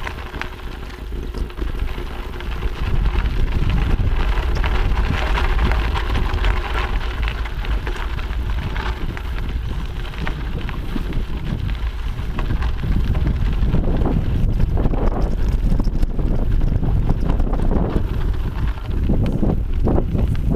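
Wind buffeting the microphone of a camera on a moving mountain bike, over the rolling crunch of knobby tyres on a dry dirt trail. In the second half come more knocks and rattles from the Specialized Camber full-suspension bike as it rides over bumps.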